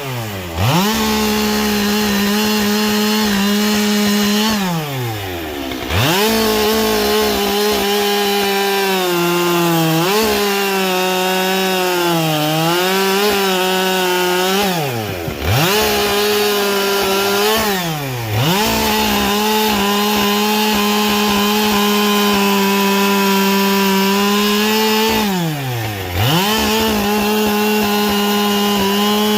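Husqvarna 572XP two-stroke chainsaw running at full throttle and cutting wood with a carbide chain. The engine pitch sags under load in the middle, and about five times it drops sharply off throttle and revs straight back up.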